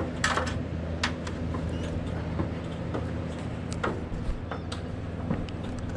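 Air conditioner unit running with a steady low hum, with scattered light clicks and taps over it.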